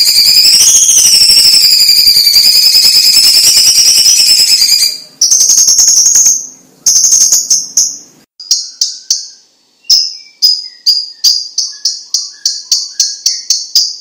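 Leafbird (cucak cungkok) singing: a continuous high, wavering trill, which about five seconds in breaks into two held high notes and sharp clicks. Then comes a run of short high chirps that speed up to about four a second.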